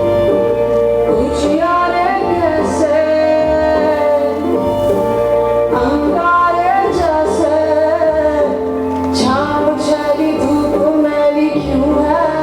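Music: a song with a woman's singing voice over instrumental backing.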